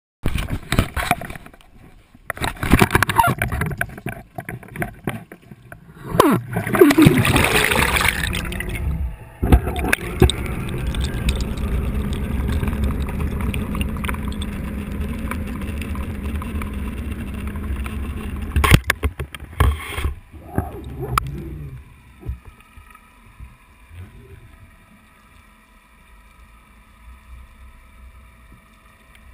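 A GoPro camera in its waterproof housing being handled and dropped into the sea: irregular knocking and splashing with bubbling gurgles over the first several seconds, then a steady low rumble of water as it sinks. A few sharp knocks come about two-thirds of the way through, after which it settles into a faint underwater hum with a few steady tones.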